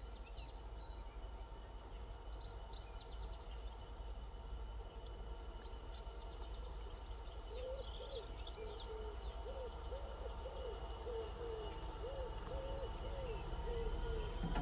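Birds chirping and twittering, joined about halfway in by a low call repeated about twice a second, over a faint steady hum.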